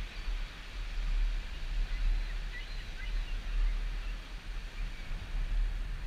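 Surf breaking on the beach under a strong, uneven low rumble, with faint short gull calls over it in the first few seconds.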